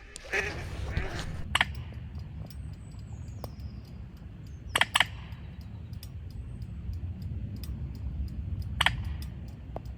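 Duck quacking in the first moment, then a steady low rumble broken by a few sharp clicks.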